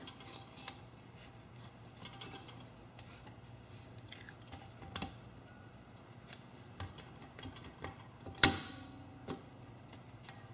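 Light metal clicks and taps of a valve spring compressor and a compressed valve spring being worked into the valve chamber of a flathead small engine, as the spring retainer is fitted over the valve stem. One sharp metal click, louder than the rest, comes about eight and a half seconds in.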